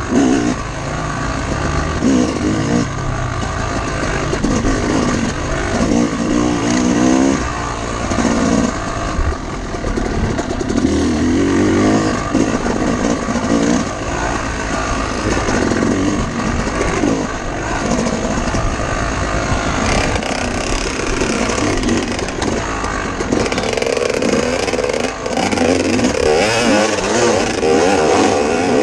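Dirt bike engine ridden hard on a track, repeatedly revving up and dropping back as the rider accelerates, shifts and backs off, with wind noise over the bike.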